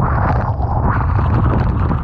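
Typhoon-force wind buffeting the microphone in a heavy low rumble, over the steady rush of storm surge and breaking waves.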